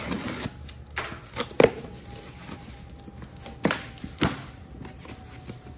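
Cardboard box being opened by hand: the packing tape slit and the flaps pulled open, with several sharp taps and knocks of handling, the loudest about a second and a half in.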